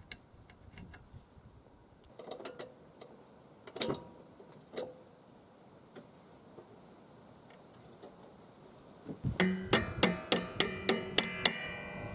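Metal mower-deck parts clicking and clinking as they are handled: a few separate clicks, then near the end a quick run of sharp, ringing metallic clicks, about five a second.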